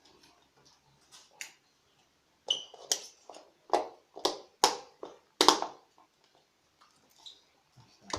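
A run of sharp clicks and knocks, about ten in the space of four seconds, from hand tools and plastic and metal parts of a wall switch being handled during the repair.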